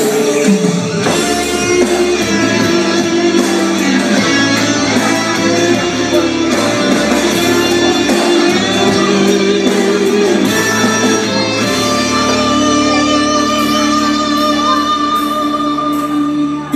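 Instrumental passage of a song, led by guitar, with no singing.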